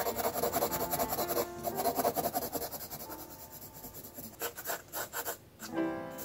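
Graphite pencil scratching on sketchbook paper in rapid back-and-forth shading strokes, with a brief pause about five seconds in as the pencil lifts. Soft background music plays underneath.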